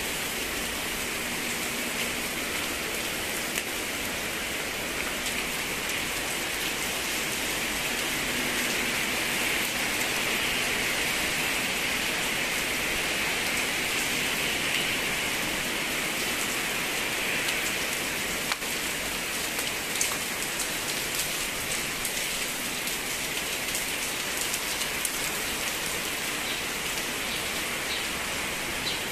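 Steady rain falling, an even hiss that keeps a constant level throughout, with a few faint ticks of drops.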